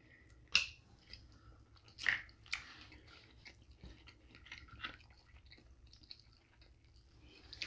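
Chewing and soft clicks of snow crab leg shells being picked apart by hand, with a few sharper snaps about half a second in and around two seconds in.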